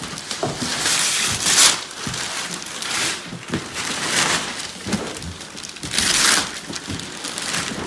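Wrapping paper being ripped off a large cardboard box in a series of tearing rips, the loudest about a second and a half in and again about six seconds in, with paper crinkling between them.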